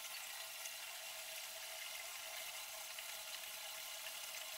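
Mung dal dry-roasting in a wok and stirred with a wooden spatula: a faint, steady, thin hiss of the grains rustling against the pan, with a few light ticks.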